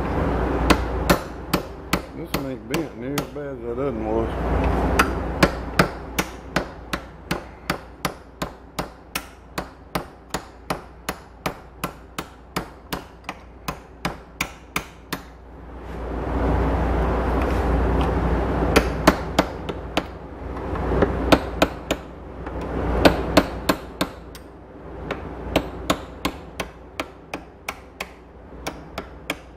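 Steel hammer striking a cold chisel against the steel of a damaged bush hog drive-shaft part, in a long run of sharp, even blows about three a second. A low rumble swells twice behind the blows.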